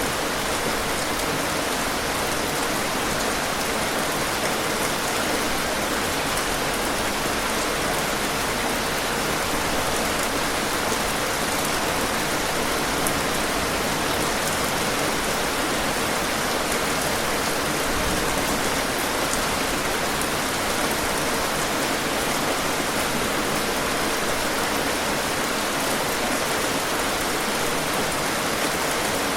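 Steady rain falling on a surface: a dense, even hiss of raindrops with faint individual drop ticks, unchanging in level.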